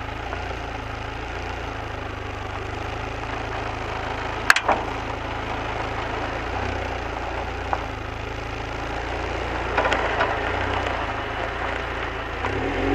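Lotus Elise S2 engine running at low, fairly steady revs. A couple of sharp clicks cut through, about four and a half seconds and nearly eight seconds in, with a short cluster of ticks and a slight rise in level around ten seconds.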